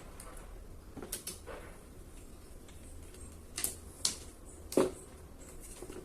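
A few sharp clicks and knocks of fan parts being handled, plastic and screws tapping together, the loudest about five seconds in.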